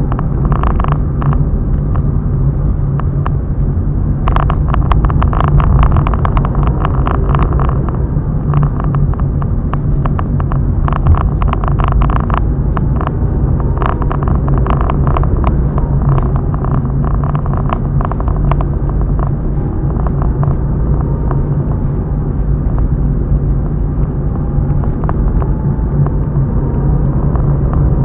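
Car driving at road speed, with a steady engine and road rumble and frequent short rattling clicks throughout.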